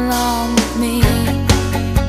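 Pop song with no lyrics sung in this stretch: a held note fades out within the first second, then drum hits come in about every half second.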